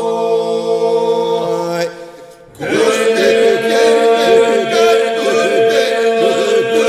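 Unaccompanied Albanian Lab iso-polyphonic singing by a male group: a steady drone (iso) held under ornamented, wavering lead voices. The voices break off briefly about two seconds in, then the drone and the ornamented lines come back in together.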